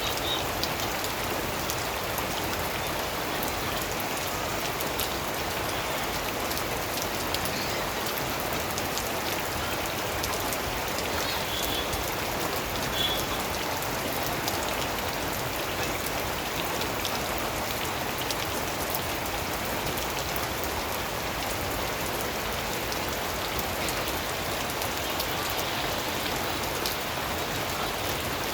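Steady rain falling and pattering on surfaces, a dense hiss of many individual drops at an even level.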